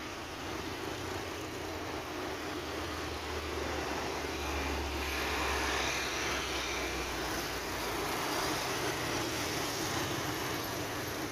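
Engine noise from an Airbus A330-900neo's Rolls-Royce Trent 7000 turbofans as the airliner rolls along the runway: a steady jet noise with a low rumble that swells a little midway and builds gently.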